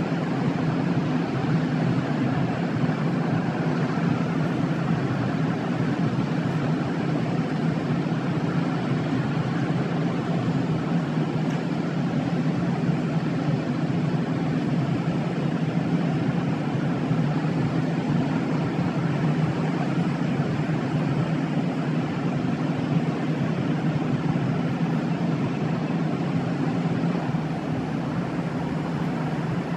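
Steady outdoor rushing noise with no distinct events, strongest low down and unchanging throughout.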